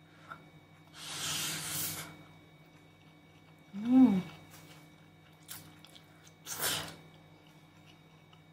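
A person slurping noodles off chopsticks: two long airy slurps, about a second in and again near the end. About four seconds in comes a brief pitched hum of enjoyment, the loudest sound in the stretch.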